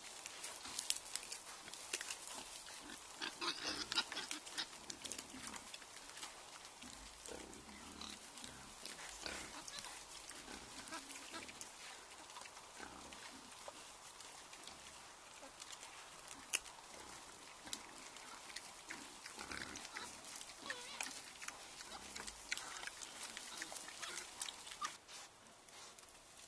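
Wild boars grunting while foraging on the forest floor, with frequent crackles and rustles of leaf litter and twigs.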